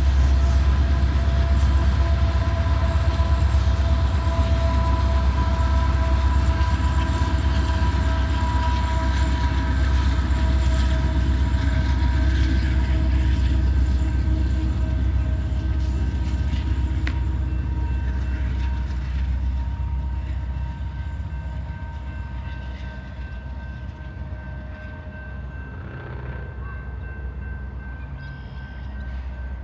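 Diesel locomotives and coal cars of a Union Pacific coal train rumbling past, the rumble dying away about twenty seconds in. Railroad crossing signal bells keep ringing as a steady ring of several tones.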